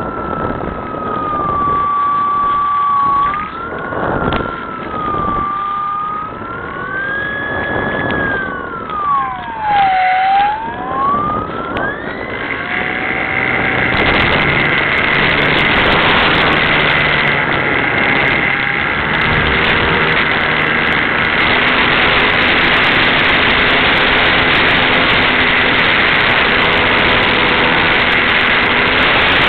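Electric motor and propeller of a Skyartec Cessna 182 radio-controlled model plane whining in flight, its pitch rising and falling. At about twelve seconds it climbs to a steady higher whine, and a loud rushing wind noise on the microphone joins it.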